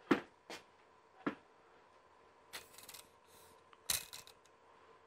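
Steel tape measure being handled while it is stretched out to measure a distance: a few sharp clicks, then short rattling scrapes of the blade.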